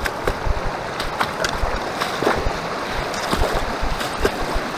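Rushing water of a fast mountain creek, broken by sharp splashes as a hiker wades across it in boots.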